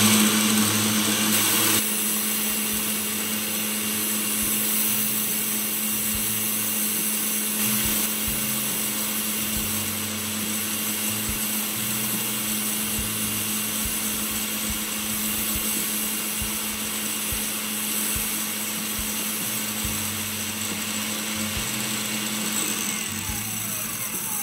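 A small electric power tool running steadily, a constant hum under a high hiss.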